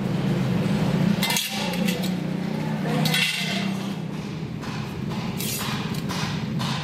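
Long stainless steel strips clanking and clinking as they are handled and set down on a concrete floor, followed by a run of quick metallic taps at a small anvil stake, over a steady low hum.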